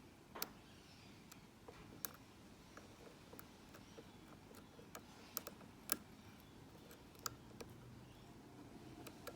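Faint, irregular small metallic clicks of a lock pick and tension wrench working the pin stack inside a Mako padlock's keyway, as pins are lifted and set.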